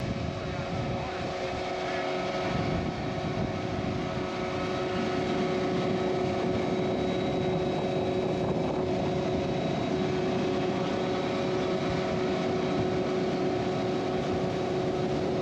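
Outboard motor on a bay boat running steadily at cruising speed. A constant engine whine sits over the rush of water and wind.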